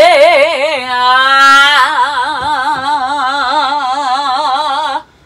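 A woman's trained singing voice in a vocal warm-up, holding a note with wide vibrato. About a second and a half in it briefly slides, then it holds the vibrato note again until it cuts off abruptly near the end.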